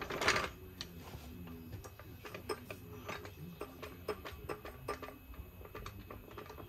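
Hydraulic floor jack being worked: a short scrape as the long handle goes into its socket, then irregular metal clicks and small clunks as the handle is pumped and the saddle rises toward the engine.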